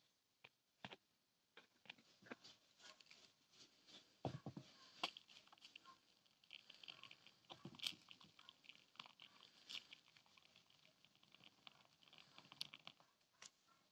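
Faint crackling and ticking with scattered sharp pops as molten metal is poured into a sand mould. The crackle picks up about four seconds in and is busiest in the middle.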